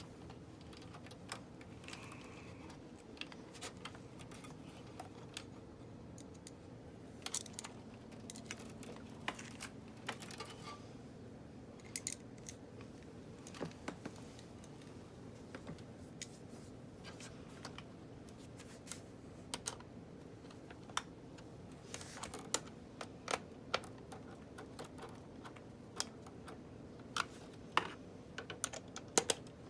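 Irregular light clicks and taps of small hard parts being handled and fitted, more frequent near the end, over a steady low hum.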